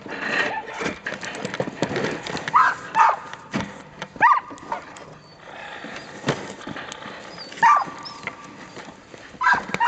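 Harnessed Samoyed sled dogs giving short, high yips and whines, about five scattered calls, the usual excited noise of a sled team held back before the start. Brief clicks and knocks sound between the calls.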